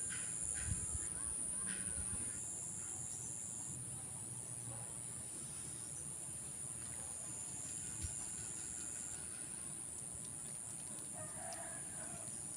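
Steady high-pitched insect buzz throughout, with a few short clucking sounds early on and a faint rooster crow near the end.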